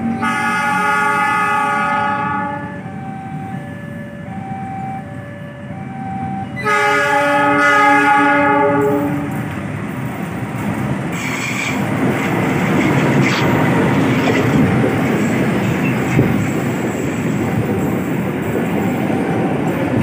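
A diesel locomotive hauling an Argo-class passenger train sounds its multi-note horn in two long blasts, the second starting about seven seconds in, over a repeating two-note chime. From about ten seconds in, the train passes close by with a steady loud rumble of wheels on the rails.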